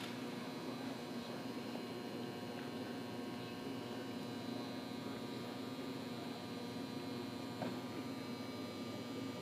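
Steady hum of a large indoor hall, made up of several unchanging tones, with one faint tap near the end.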